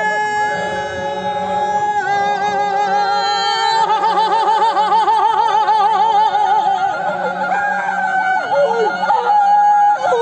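A group of men chanting together in long held notes: steady at first, then wavering strongly from a few seconds in, with some voices sliding down in pitch near the end.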